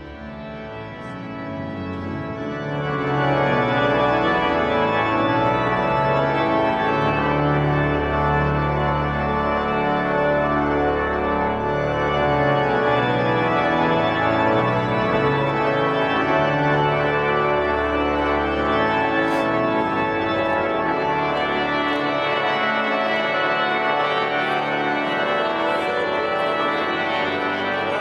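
Organ playing a slow processional of sustained chords over deep bass notes, swelling up over the first three seconds or so and then holding steady.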